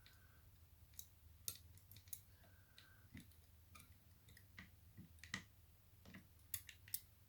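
Faint, irregular metallic clicks of a lever-lock pick working the levers inside a Union British Standard five-lever mortice lock.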